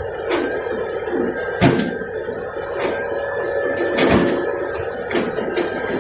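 Excavator running with a steady engine drone, broken by several sharp metallic knocks.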